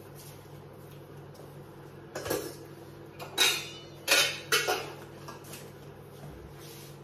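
Stainless-steel cooking pots clanking against each other as one is lifted out and handled: about four sharp metallic clanks with a short ring, between about two and five seconds in.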